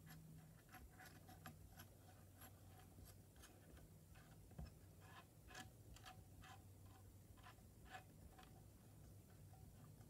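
Near silence with faint, irregular small clicks, a few per second, from fingers handling the needle and thread area of a small plastic mini sewing machine, over a steady low hum.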